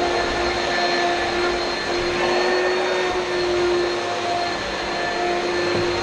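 Oreck XL2 upright vacuum cleaner running steadily: a constant motor hum over an even rush of air.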